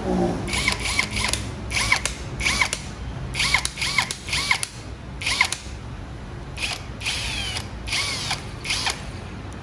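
Cordless drill run in about a dozen short trigger pulls, its motor whining briefly up to speed and back down each time.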